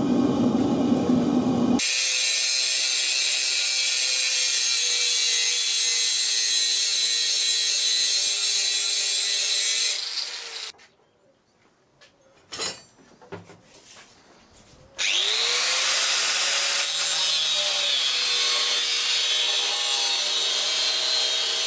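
Angle grinder with a thin cutting disc cutting through the steel bar of a forged axe head. It runs steadily, stops about ten seconds in and winds down, then spins back up about fifteen seconds in and cuts again.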